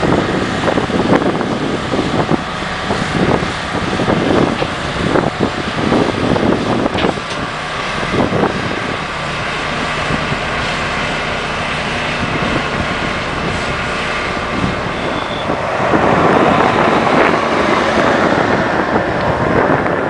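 A heavy vehicle's engine running, with wind buffeting the microphone; the sound grows louder about sixteen seconds in.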